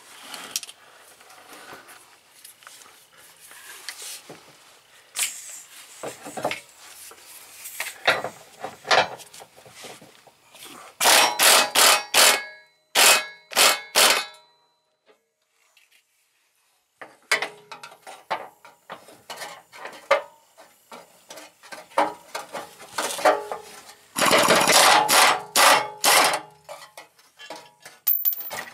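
Tools working on metal under a minivan: scattered clanks and scraping, with two loud runs of rapid, evenly spaced strokes, one about eleven seconds in and another about twenty-four seconds in.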